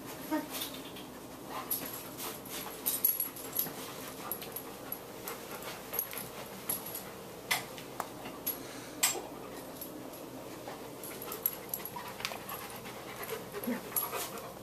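A large dog panting as it moves about, with scattered short clicks and clinks throughout.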